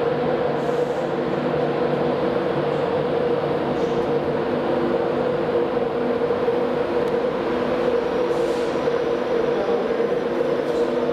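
Class 91 electric locomotive passing slowly, with a steady hum of several held tones that stays at one pitch.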